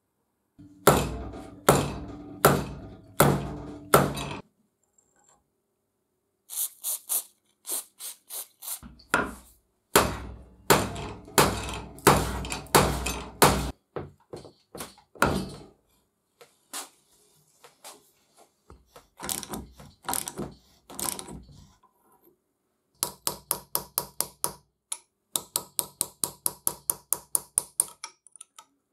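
Hammer blows on steel while freeing the rusted, seized nut of a rebar cutter: groups of heavy, ringing strikes, then near the end a fast run of lighter taps, about four a second, as a chisel is driven against the nut's rusted washer.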